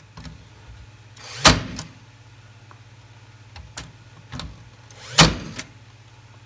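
Nail gun tacking wooden stop blocks onto a dresser's drawer runners: two sharp shots about four seconds apart, each preceded by a brief rising whir, with a few lighter clicks of handling between them.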